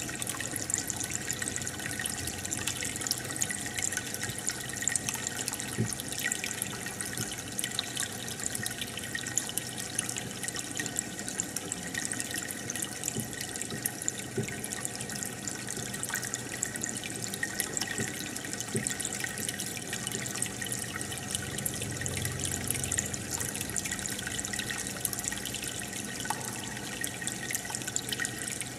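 Aquarium air bubbler running: a steady stream of bubbles rising and splashing at the water surface, a continuous trickling bubble full of small pops and drips.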